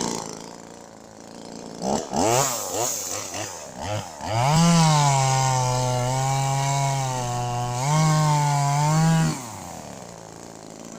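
Small Zomax ZM2000 two-stroke chainsaw blipped a few times, then held at full throttle, its pitch sagging under load as it cuts wood and rising again before it drops back to idle near the end.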